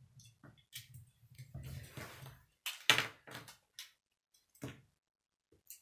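A Lego toy car and its plastic pieces being handled on a wooden table: scattered light clicks and knocks, the loudest about three seconds in, over a low rumble for the first couple of seconds.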